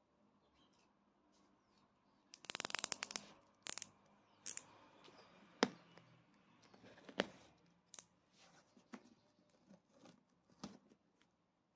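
Utility knife cutting clear packing tape on a cardboard box: a quick run of rapid clicks about two seconds in, then scattered sharp clicks and scrapes of the blade on tape and cardboard.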